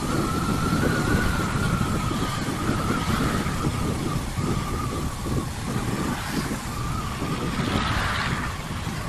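CPI DTR 150 dirt bike running on the road while being ridden, with heavy wind buffeting on the microphone and a steady, slightly wavering whine throughout.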